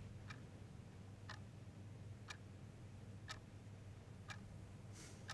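Clock ticking faintly and evenly, about one tick a second, over a low steady hum of room tone.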